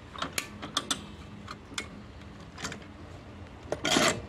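Small hand-cranked cable winch and its metal fittings being handled: scattered irregular metallic clicks and ticks, with a louder rattle near the end, as the strap tension is let off.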